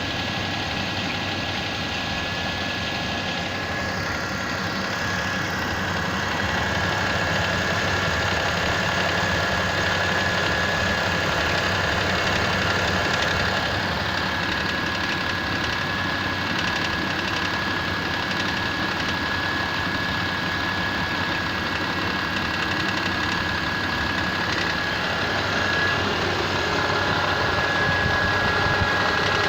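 Mitsubishi Pajero IV's 6G75 3.8-litre V6 idling cold, with a steady rapid knock running through it: a knock of unknown cause that shows up when the engine is cold.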